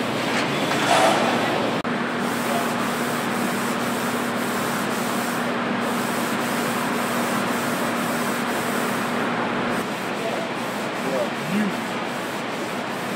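Steady machinery noise of a car-body stamping shop floor, an even hiss-like din with a steady hum that starts about two seconds in and stops near ten seconds.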